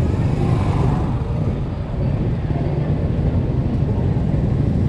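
Wind buffeting the microphone and road noise from a Yamaha XMAX 300 scooter under way, its single-cylinder engine running underneath; a slight swell of higher-pitched road noise comes about a second in.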